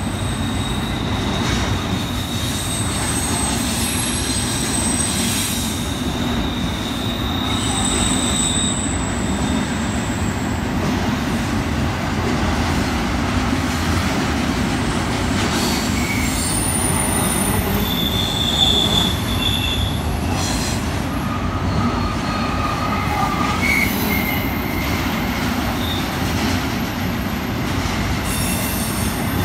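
Freight train of empty intermodal well cars rolling past: a steady rumble of wheels on rail, with short high-pitched wheel squeals that come and go at several pitches.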